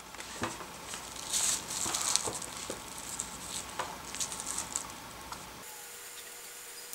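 Plastic crinkling and rustling with scattered small clicks as the HMI panel and its cables are handled on a sheet of bubble wrap. After about five and a half seconds this gives way to a faint steady hum.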